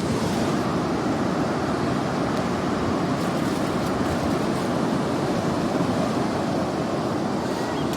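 Sea surf washing on a beach: a steady rush of breaking waves that swells up and holds.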